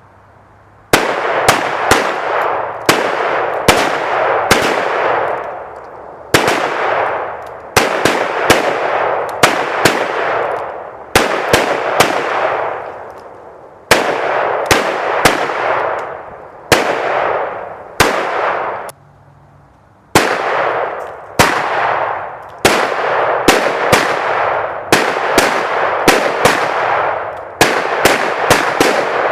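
Handgun fire in rapid strings of several shots a second, each string trailing off in a long echo. The shooting starts about a second in, with a short pause about two-thirds of the way through.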